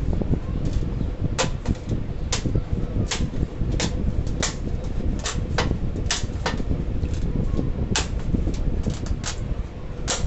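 Irregular sharp clicks and taps, about one to two a second, as an LED backlight strip is prised off a TV's metal back panel with a screwdriver, over a steady low rumble.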